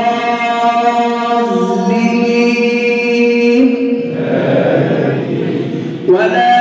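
A man's voice chanting Quran recitation in a slow, melodic style, holding a long drawn-out note, then breaking off for a breath about four seconds in and resuming near the end.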